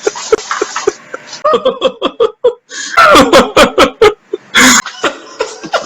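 A man laughing in quick repeated bursts, loudest in a rapid run about three seconds in, with one short cough a little after four seconds.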